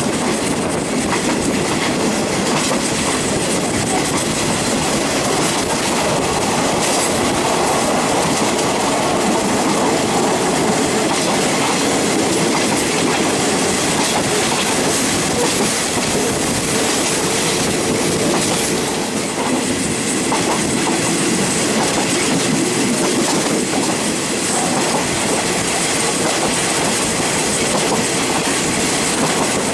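State Railway of Thailand Express 51 passenger train running along the line, heard from an open carriage window: a steady rumble of wheels on rail with the clickety-clack of the rail joints.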